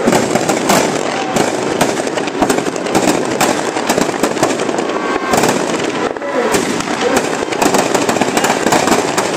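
Firecrackers packed inside a burning Ravan effigy going off in a dense, continuous string of sharp cracks and bangs.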